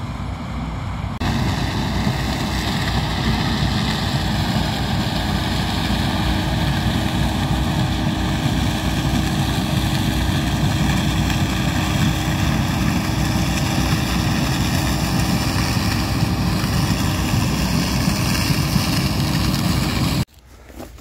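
Massey Ferguson combine harvester running steadily while harvesting dry maize, its engine and threshing noise heavy in the low end. The sound jumps louder about a second in and drops away abruptly just before the end.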